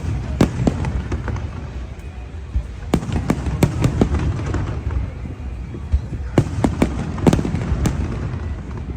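Aerial fireworks going off: irregular sharp bangs and crackles, in clusters, over a steady low rumble.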